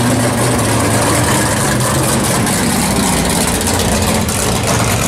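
A 1967 Pontiac GTO drag car's engine idling loudly and steadily as the car rolls slowly past at low speed.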